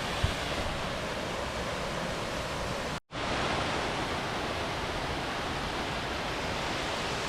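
Strong wind rushing and buffeting over the microphone, a steady dense roar that cuts out for a split second about three seconds in.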